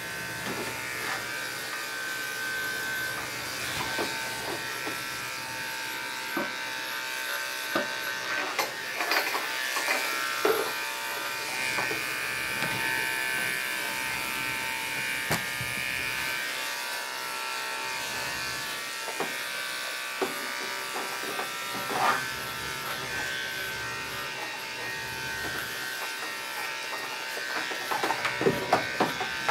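Andis Endurance detachable-blade dog clipper with a #7 blade running steadily, a constant electric hum, with scattered knocks and clicks, several of them close together near the end.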